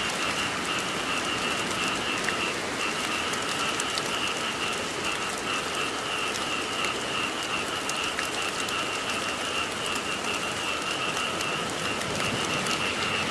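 Steady rain falling, with fine drop ticks, and a chorus of frogs calling without a break underneath as a continuous, slightly pulsing high trill.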